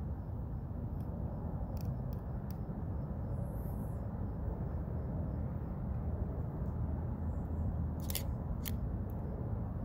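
Strong gusty wind buffeting the microphone, a steady low rushing rumble, with a few sharp clicks scattered through it.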